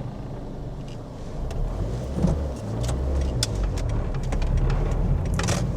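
Car engine and road noise heard from inside the cabin: a steady low drone that grows louder about a second and a half in, with a few faint clicks.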